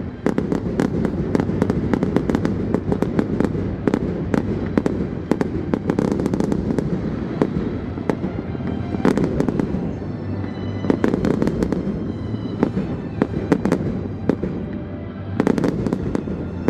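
Fireworks going off in rapid succession, many sharp bangs and crackles one after another, over music.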